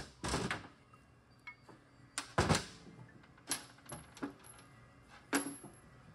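A run of sharp metallic clinks and knocks, about seven or eight, some ringing briefly, the loudest about two and a half seconds in: the cast aluminium tail housing just knocked off a Toyota AB60E automatic transmission being lifted away and set down on the steel workbench, with its bolts handled.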